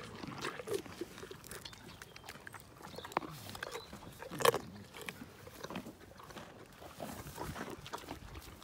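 Pony chewing a carrot taken from a hand: irregular crisp crunches, with one loud crunch about halfway through.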